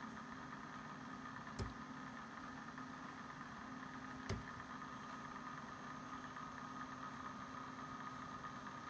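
A steady, quiet machine hum holding a few constant tones, broken by two short clicks about a second and a half and four seconds in.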